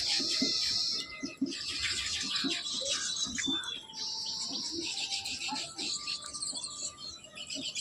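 A group of small birds chirping and chattering, many high calls overlapping in a continuous twitter, with brief lulls about a second in and near the middle.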